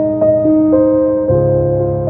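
Soft, slow keyboard music, electric piano or piano, with sustained notes and a few new notes struck, one chord change about one and a half seconds in.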